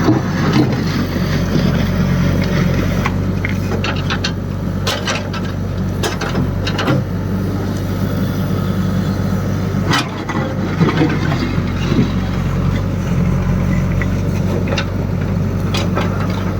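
Heavy construction machine's engine running steadily, with scattered clanks and knocks over it.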